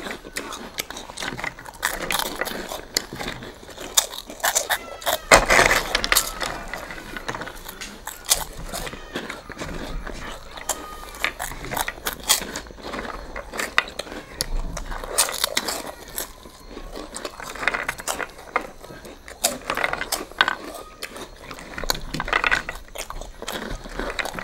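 Three people crunching and chewing crisp, tube-shaped ngaprum makak snacks eaten straight off their plates without hands: a dense, irregular run of crunches.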